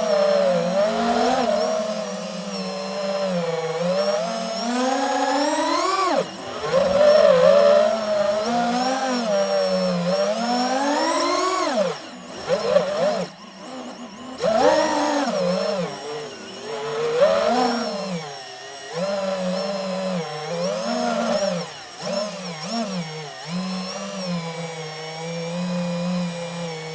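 DJI FPV drone's motors and propellers whining, the pitch sweeping up and down again and again with throttle. It climbs steeply to a peak about six seconds in and again about twelve seconds in, and drops away briefly around thirteen seconds in.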